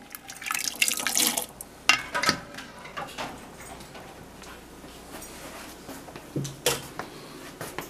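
A plastic ladle scooping and pouring liquid in a pot of cooked beans, with splashing and dripping in the first couple of seconds, then a brief knock near the end.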